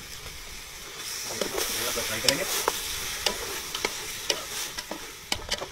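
Raw mutton pieces dropped into hot oil and fried onions in an aluminium pot, sizzling louder from about a second in. A spatula stirs them with sharp clacks and scrapes against the pot.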